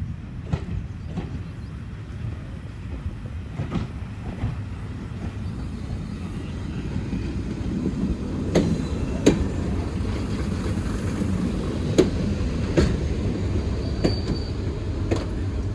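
Class 101 diesel multiple unit running slowly along the platform: a steady low diesel rumble that grows louder about halfway through, with sharp wheel clicks over the rail joints scattered through it.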